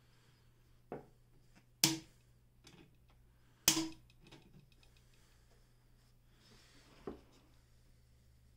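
A few sharp clicks and knocks from hands handling a Brother Window-Matic sewing machine while threading it, with two louder knocks about two and four seconds in.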